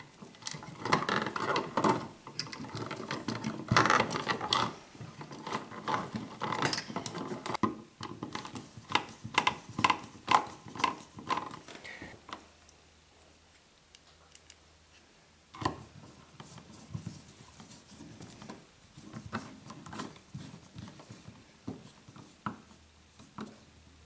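Stiff electrical wires rustling and scraping as they are folded and pushed into a wall box, with many small clicks and knocks of plastic switch bodies and metal mounting straps. After a quiet spell about halfway, sparser light ticks and scrapes as a screwdriver turns the switches' mounting screws.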